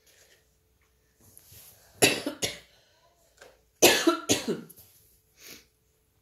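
A person coughing: two loud bouts of two quick coughs each, about two and four seconds in.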